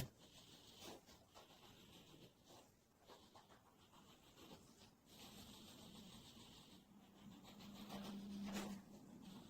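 Near silence: faint scratchy rubbing noise with a sharp click at the start and scattered faint ticks, and a low hum that grows over the last few seconds before cutting off.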